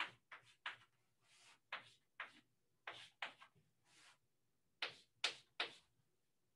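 Chalk tapping and scratching on a blackboard during writing: a string of short sharp ticks with a few brief scratchy strokes between them. The loudest are three quick taps about five seconds in.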